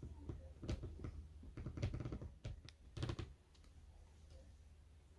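Light, irregular clicks and knocks of small objects being handled, stopping about three seconds in, leaving a faint steady room hum.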